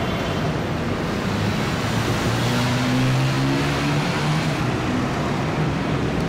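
Busy street traffic, a steady wash of engines and tyres. A motorcycle engine passes close by between about two and four and a half seconds in.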